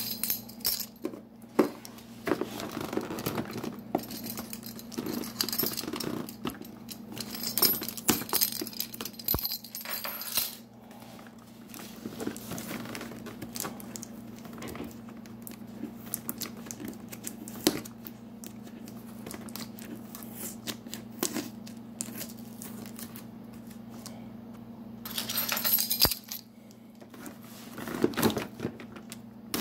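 Hands scratching, tapping and picking at a cardboard box to open its taped flaps: irregular scratchy rustles and clicks, with a steady low hum underneath.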